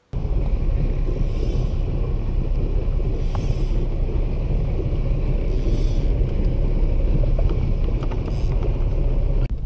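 Wind buffeting the microphone of a boat-mounted action camera: a loud, steady low rumble, with brief hissing swells every two or three seconds.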